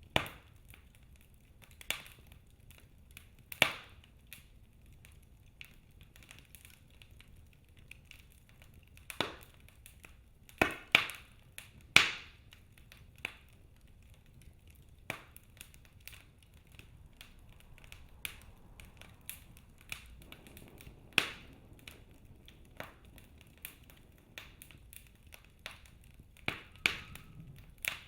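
Wood fire in a fireplace crackling: sharp, irregular pops and snaps from the burning logs, spaced a second or several apart, with a quick run of louder pops a little before halfway, over a faint low rumble.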